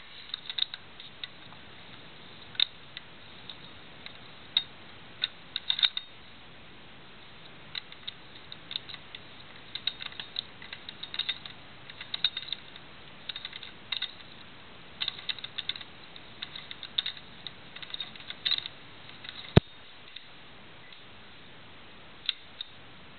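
Irregular clicking and ticking of a post office mailbox door's three-digit combination lock as its dial is turned by hand, the wheel pack and fence clicking inside. A single sharp, loud click near the end as the latch releases and the door opens.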